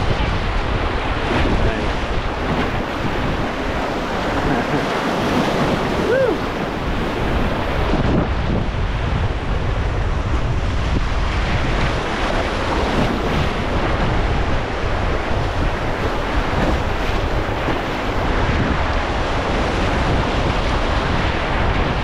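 River water rushing steadily and loudly around the raft, with wind noise rumbling on the microphone.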